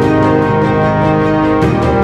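Instrumental background music: held chords over a steady beat, changing chord near the end.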